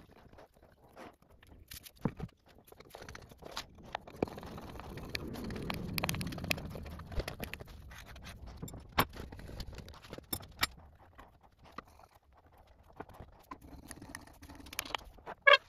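Hand tools worked on wood: a screwdriver turning a screw into a plywood block, heard as a low scraping swell in the middle, among scattered clicks and taps of tools and parts being handled. A sharp clack near the end is the loudest sound.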